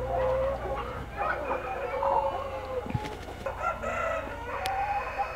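A large flock of broiler breeder hens clucking and calling, many overlapping voices at once, over a steady low hum.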